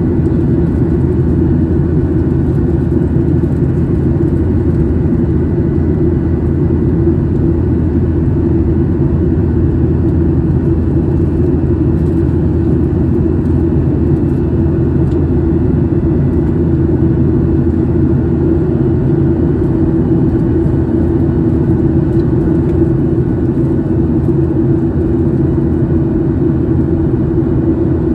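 Boeing 737 in flight, heard from inside the cabin during the climb: a loud, steady rumble of jet engines and airflow with a constant low hum over it.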